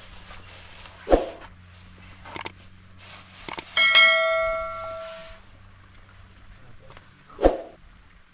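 A metal dish clangs about four seconds in, its ring dying away over a second and a half. A dull thump comes a second in and another near the end, over a steady low hum.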